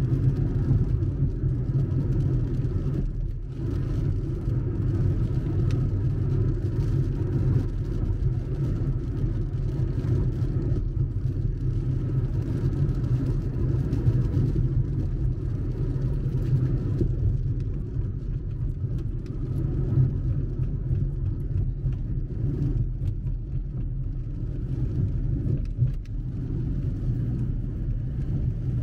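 Steady low rumble of a car driving, heard from inside the cabin: engine and tyre road noise.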